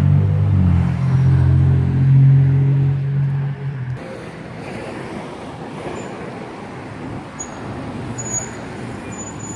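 A motor vehicle's engine running close by with a steady low hum that cuts off suddenly about four seconds in, leaving quieter road traffic noise with a few short high squeaks near the end.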